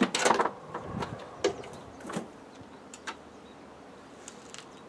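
Clicks and knocks of a vacuum pipe and its fitting being worked loose and handled by hand. A quick flurry comes in the first half-second, then single sharp clicks about once a second, growing sparse toward the end.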